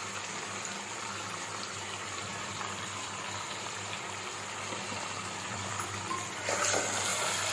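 Chicken pieces and masala paste sizzling in hot mustard oil in a kadai, a steady frying hiss that swells briefly near the end.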